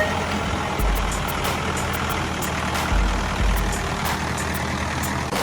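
Tractor engine running steadily with a deep, throbbing hum.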